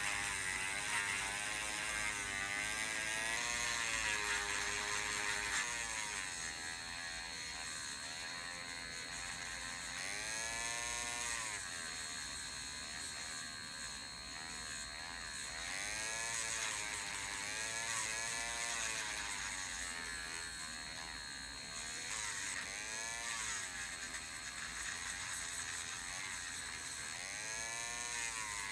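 Small electric sanding tool running as it sands out the bubble holes inside resin keycaps. Its whir rises and falls in pitch every second or two over a steady high tone.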